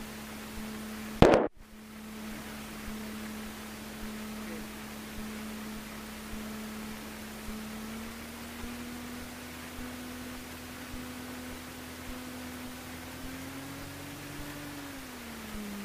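Cessna 150's Continental O-200 engine at taxi power, heard from the cockpit as a steady drone whose pitch steps up a little about halfway and rises again near the end before dropping back. A brief loud click-like burst about a second in.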